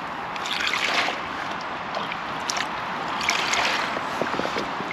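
Water poured from a small scoop cup into the open top of a foldable 10 L plastic water bag, splashing and trickling into it. There are two pours, about half a second in and again about three seconds in.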